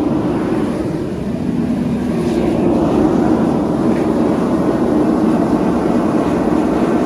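Propane ribbon-burner forge running at heat: a steady rush of burning gas from the burners, a little louder from about two and a half seconds in.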